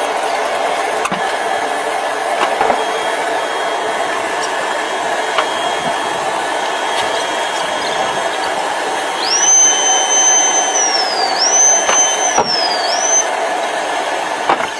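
Steady mechanical whirring. About nine seconds in, a high whistling tone joins it, rising, holding and falling twice.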